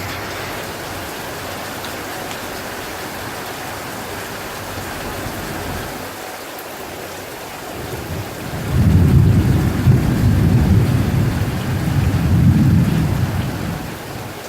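Steady rain hissing through a summer thunderstorm. About eight seconds in, a long low rumble of thunder builds, swells twice and fades away near the end.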